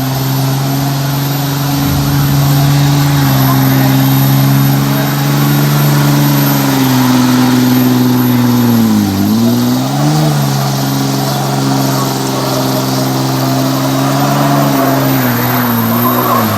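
Diesel engine held at steady high revs during a burnout, over the hiss of spinning tyres. About nine seconds in, the revs dip briefly twice and climb back.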